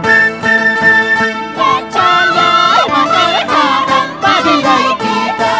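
Traditional Andean folk music: plucked string instruments playing, joined about a second and a half in by voices singing with a wavering pitch.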